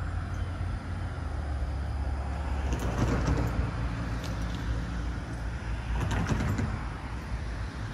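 Steady low engine rumble of motor traffic, with two louder swells about three seconds and six seconds in.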